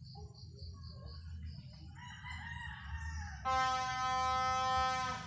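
A rooster crowing: a few broken opening notes about two seconds in, then one long, loud held note that drops off just before the end.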